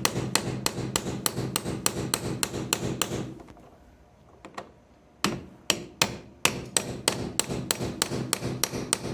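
Rapid, evenly spaced tapping, about four strikes a second, over a steady low hum. It stops for about two seconds near the middle, then resumes at the same pace.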